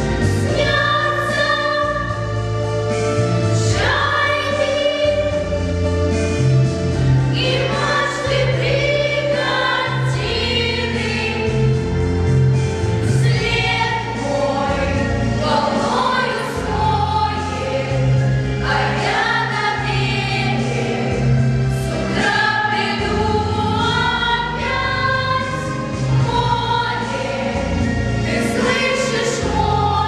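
A girls' vocal ensemble singing a song together, over a steady low instrumental accompaniment.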